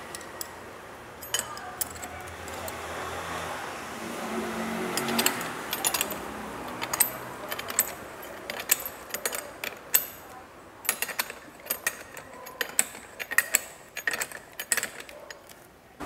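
Irregular metallic clicks and clinks of a hand wrench turning the self-locking nut onto the top of a Volkswagen Jetta's front shock-absorber strut, with the metal parts being handled.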